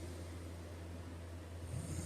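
A man snoring in his sleep: the quiet gap between two snores over a steady low hum, with the next snore starting near the end.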